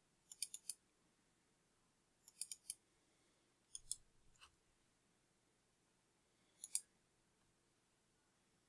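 Computer mouse button clicks in four quick clusters of two to four sharp clicks each, double-clicks among them, over near silence.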